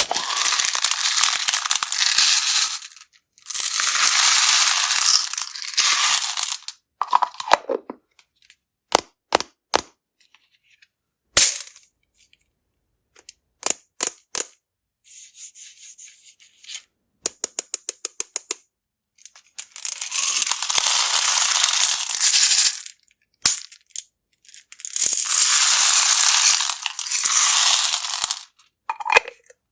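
Small hard candies poured in streams, rattling and clattering into a container in four long pours of a few seconds each. Single pieces click and drop in between, with one quick run of ticks in the middle.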